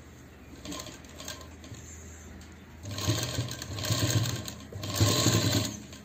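Sewing machine stitching in three short runs of about a second each, stopping briefly between them, over a low steady hum. It is running a second line of stitching over an existing seam.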